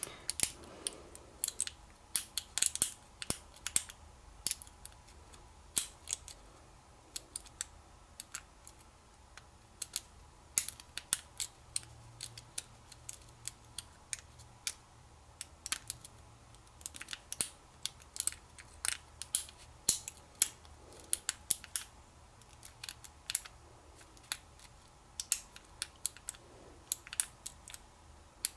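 Lock pick and tension bar working the pin stack of an American Lock 5200 padlock. Sharp metallic clicks and ticks come irregularly, about one to three a second, as pins are pushed and set.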